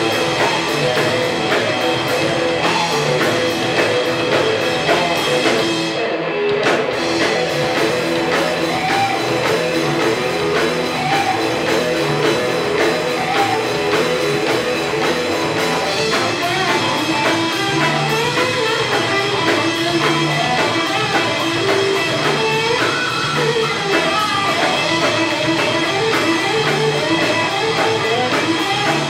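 A rock trio playing live and loud without vocals: electric guitar, electric bass and drum kit.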